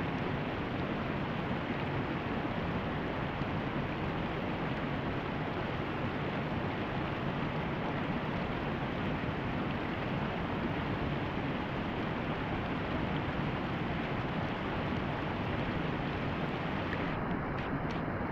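Water spilling over a low concrete weir, a steady rushing.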